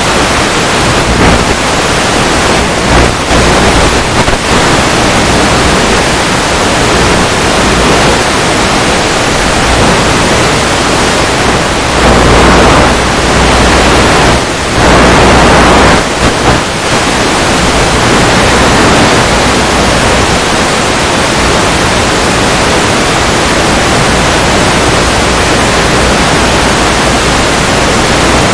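Loud, steady hiss of static from an analog FPV headset's video receiver recording, with no motor tone in it; the hiss swells louder twice about halfway through.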